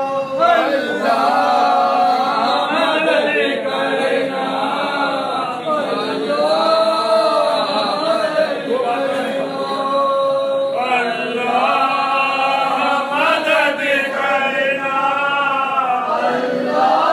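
A group of men chanting a noha, a Shia Muharram lament, together in long sung phrases.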